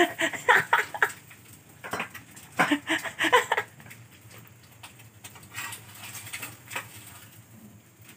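Hot oil spattering and crackling in a frying pan as an egg fries, a burst of sharp pops over the first few seconds that then dies down to a faint hiss.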